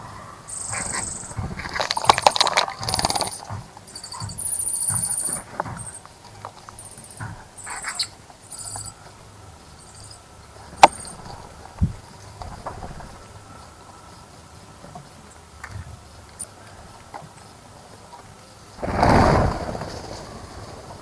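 Small birds bathing in a bird bath: brief bursts of splashing and wing-fluttering, with one longer burst near the end, and short, high, thin chirps mostly in the first half.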